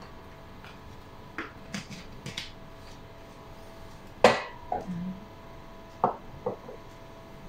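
Glass jars and a spoon clinking and being set down on a kitchen counter: a few light clinks, then one louder knock about four seconds in, and two more knocks near the end.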